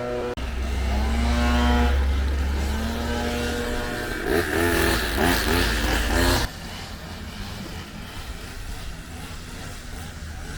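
Engine noise with pitch that glides up and down and a heavy low rumble, cutting off abruptly about six and a half seconds in and leaving a quieter steady rushing noise.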